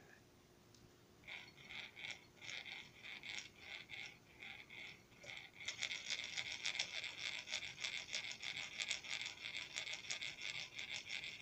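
A 3D-printed ball-piston air engine, driven by an electric pulse motor with magnets on its wheel, starting up under power: light, uneven clicking and rattling that begins about a second in and turns faster and steadier about halfway through.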